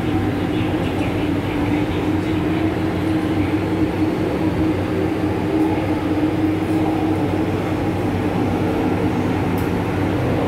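Running noise inside a Hong Kong MTR Island Line M-Train car in a tunnel: an even rumble of wheels on rail with a steady hum from the train's equipment, which fades a little about seven seconds in.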